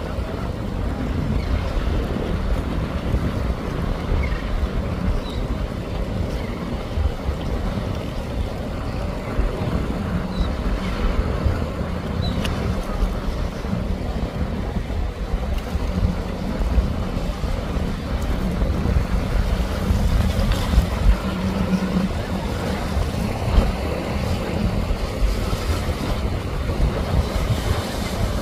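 Pursuit cabin cruiser's engines running at speed through rough water, with waves splashing and heavy wind on the microphone; a steady engine drone stands out for a few seconds past the middle.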